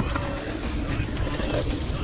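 Background music over the rattling, rolling noise of a mountain bike riding a rough trail.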